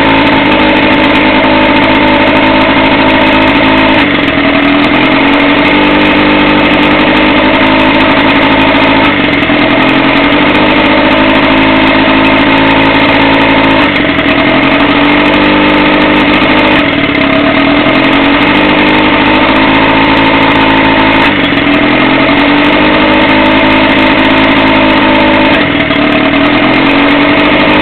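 Boat motor running at a steady speed that sags briefly and recovers about every four to five seconds. This is the unexplained sound that the owner cannot trace.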